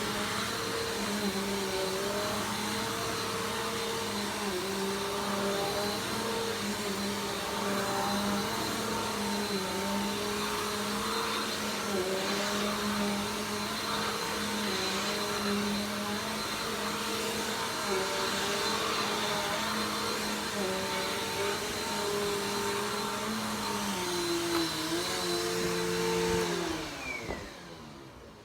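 Vacuum cleaner running steadily, a loud motor whine over airflow noise, then switched off near the end, its motor winding down with falling pitch.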